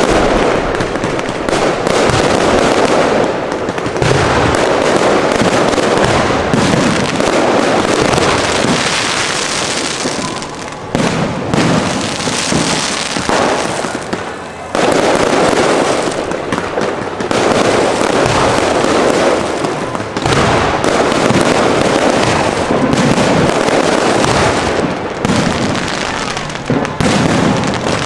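Aerial fireworks show: shells bursting in rapid, near-continuous succession with dense crackling, easing briefly about eleven seconds in and again near fifteen seconds.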